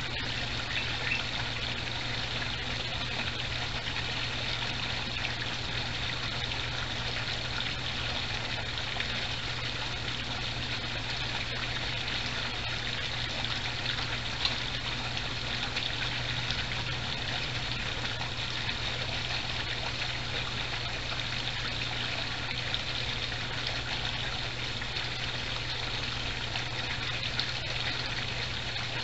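Water trickling steadily into a backyard koi pond, an even splashing hiss with a low steady hum underneath.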